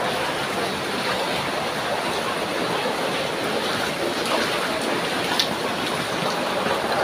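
Steady rush of rain falling on floodwater, with splashing from feet wading through the water.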